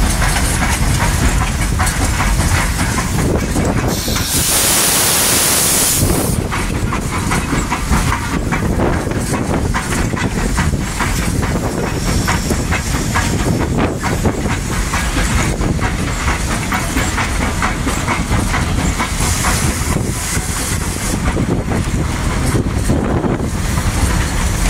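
Cab of a Rio Grande K-36 narrow-gauge 2-8-2 steam locomotive rolling slowly: a steady rumble and clatter throughout. A loud steam hiss about four seconds in lasts roughly two seconds, and a shorter, fainter hiss comes near twenty seconds.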